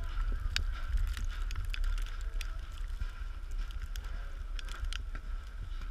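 Wind buffeting a GoPro's microphone as a low rumble, with scattered short, sharp clicks and knocks.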